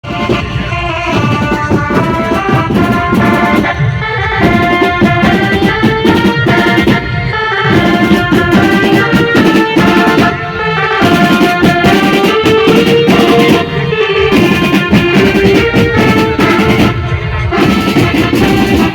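Loud music with drums and a melodic lead, broken by short pauses about every three and a half seconds.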